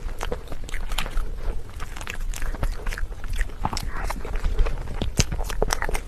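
Close-miked biting and chewing of food: a string of irregular crisp clicks and crunches.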